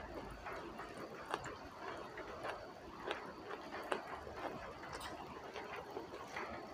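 Close-miked chewing of a mouthful of rice and raw coriander leaves: irregular soft wet mouth clicks and smacks, with fingers picking at food on a banana leaf.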